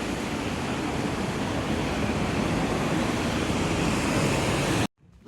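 Steady rushing noise that swells slightly and cuts off suddenly near the end.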